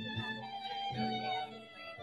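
Violin playing a melody with a long held note about half a second in, over low plucked guitar notes.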